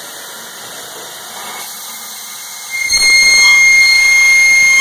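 Horizontal drill head of a Voortman V630 CNC beam drill as its bit engages a steel beam: a quiet machine hum, then about three seconds in a sudden loud, steady high-pitched squeal as the drill starts cutting the steel.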